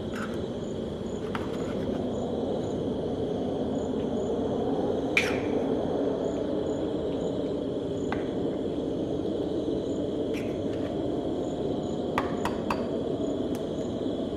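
Eggshells clicking and cracking as eggs are broken and separated by hand: a handful of short sharp clicks, the loudest about five seconds in and two close together near the end. Under them runs a steady low rumble and an even, high chirping of crickets.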